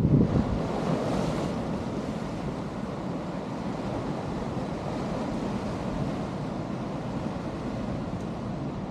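Sea surf breaking and washing over boulders, with wind buffeting the microphone. A louder surge comes right at the start, then a steady wash of water.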